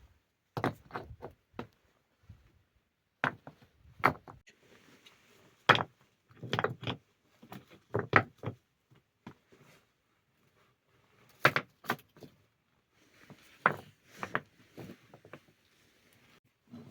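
Stones knocking and clattering against each other as they are picked up and set in place, in short bursts of sharp knocks with quiet pauses between.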